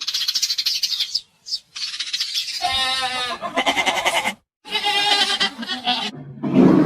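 Animal calls: a rapid, high chattering in the first second, then two long, wavering pitched calls, and a louder, lower call starting near the end.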